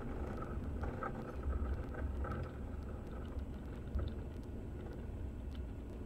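Low, steady rumble of a Diamond DA40 on its landing rollout, its wheels rolling on the runway and its engine running.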